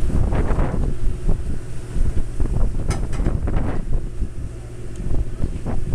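Wind buffeting the microphone on an open boat deck, over a steady low rumble from the boat, with a few short knocks and a sharp click about three seconds in.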